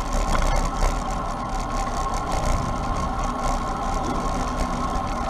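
Steady wind and road noise from a bicycle rolling at speed, heard as a constant low rumble with a steady hum on top as it reaches the action camera's microphone.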